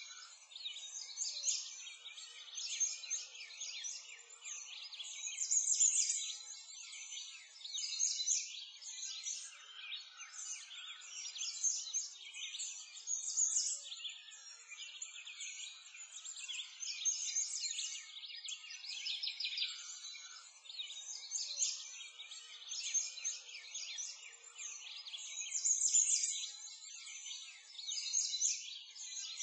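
Dense chorus of small birds chirping and twittering, many overlapping high calls that swell and fade every few seconds, like a recorded birdsong ambience track.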